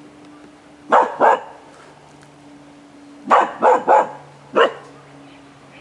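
Jomon Shiba dog barking: a quick pair of barks about a second in, then four more in a short run near the middle.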